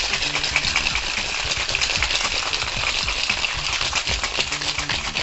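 Ice rattling hard and fast inside a Boston shaker, a metal tin capped with a mixing glass, as a gin-vodka martini is shaken over ice: a continuous dense clatter.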